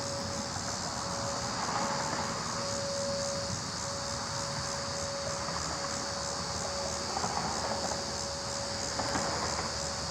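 Outdoor tornado warning siren sounding in its scheduled monthly test: one steady tone that breaks off briefly now and then. Insects chirp steadily in the background.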